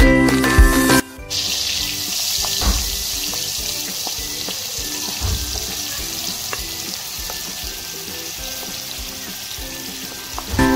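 Chopped onions hitting hot oil in a kadai and sizzling, a steady hiss that starts about a second in and slowly grows quieter, with a few faint clicks. A jingly music track plays in the first second and comes back at the very end.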